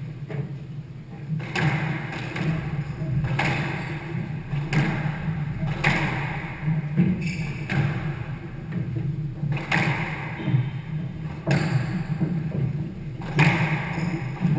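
A squash rally: the ball is struck about eight times, a sharp racket hit and thud off the walls roughly every one and a half to two seconds, over a steady low hum.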